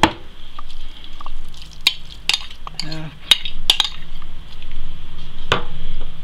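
Metal spoon clinking and scraping against ceramic bowls as a soft fried onion-and-pepper mixture is scooped out onto minced meat, with about half a dozen sharp clinks.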